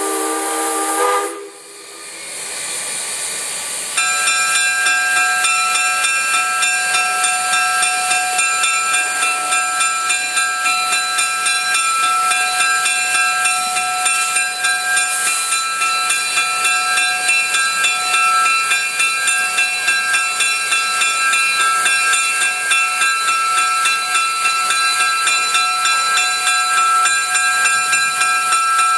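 2-8-0 steam locomotive No. 610 hissing steam as it stands or creeps forward, with a steady whine in several tones and a regular pulsing. The sound comes in suddenly about four seconds in and stays loud.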